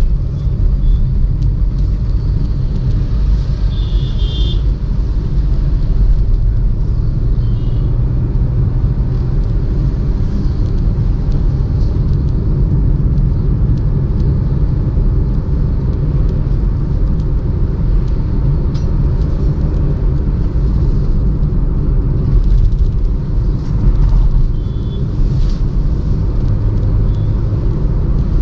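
Steady low rumble of a moving car's road and wind noise, with a few brief high tones.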